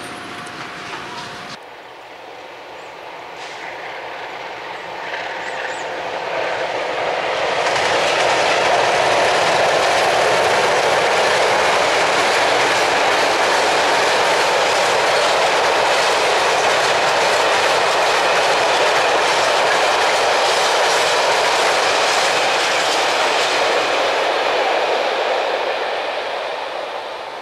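A long freight train of open wagons rolling past, its wheels running on the rails. The sound swells a few seconds in, holds steady and loud, then fades as the last wagons go by.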